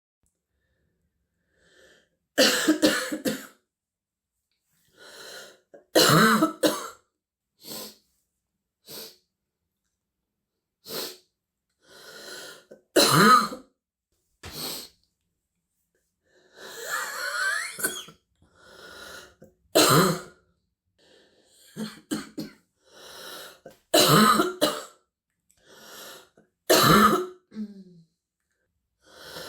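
A girl with a stuffy, wheezy chest cold coughing a deep, barking cough, in about six loud fits spaced a few seconds apart, with quieter breaths and throat sounds in between.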